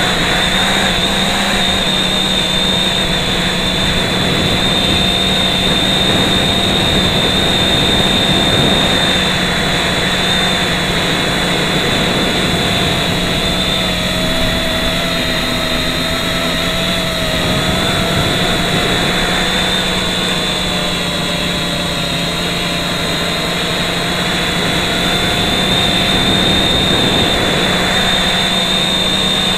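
FPV quadcopter's brushless motors and propellers whining steadily, heard up close through a camera mounted on the drone, the pitch wavering slightly with the throttle.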